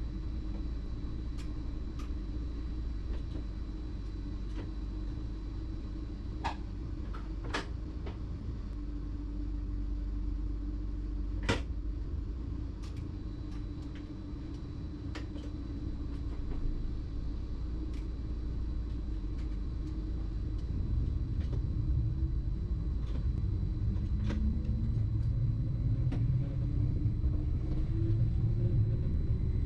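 BLS MUTZ RABe 515 electric multiple unit running, heard as a steady low rumble with a few sharp clicks. About two-thirds of the way in it grows louder and a rising whine joins in.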